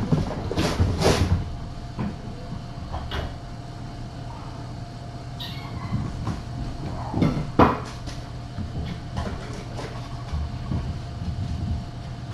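Kittens scampering and wrestling: irregular thumps, scuffles and rattles of paws on the floor and cat trees, loudest about a second in and again near the eight-second mark, over a steady low hum.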